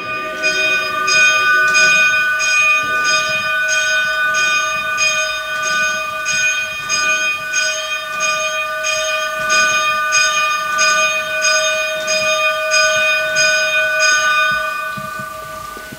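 A bell struck at a steady pace, about three strokes every two seconds, its tone ringing on between strokes. The striking stops near the end and the ringing fades.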